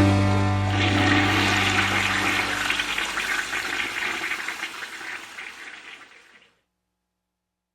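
A toilet flushing: a rush of water that swells about a second in and then fades away over several seconds. It plays under the final chord of a rock band, which is dying out.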